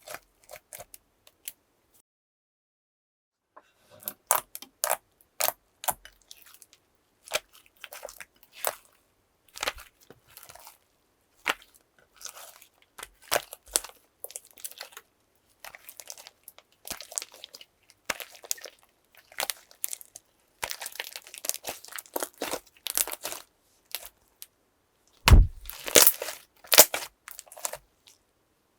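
Slime being squished and worked by hand, making a run of sticky crackles, pops and crunchy clicks. They stop for about a second and a half early on and are loudest in a burst near the end.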